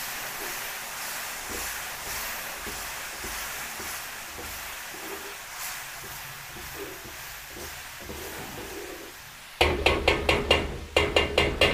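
Tomato sauce with sautéed onion and garlic sizzling in a large metal wok over a gas flame as a ladle stirs it. Near the end come two quick runs of loud metallic knocks, several a second, as the ladle is struck against the wok.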